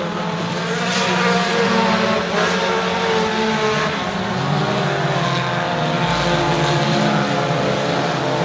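A pack of dirt-track U-car race cars running at speed around the oval. Several engines are heard together, their pitches rising and falling as the cars pass and lift through the turns.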